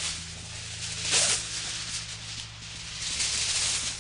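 Aluminium foil crinkling and rustling as a large sheet is pulled out and handled, loudest about a second in and again near the end. A steady low hum runs underneath.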